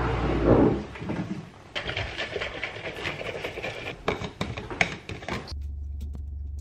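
A drink poured from a carton into an insulated tumbler, followed by clattering and clicks as the tumbler's lid is fitted. About five and a half seconds in it changes abruptly to the steady low hum of a car's cabin.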